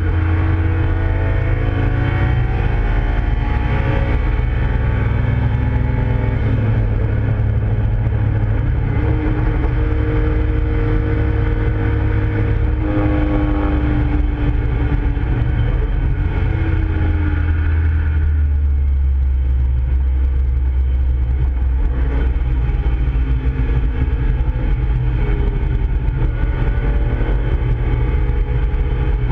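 Nissan Skyline GT-R (KPGC10) S20 twin-cam straight-six heard from inside the cabin at racing speed, its pitch rising repeatedly as it pulls through the revs. About 18 seconds in the higher part of the engine sound falls away, leaving a deep low drone as the car runs into a corner.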